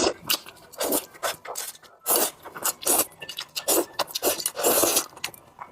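Close-miked eating sounds of a bowl of spicy pork rice: irregular scraping and wet chewing noises in short bursts.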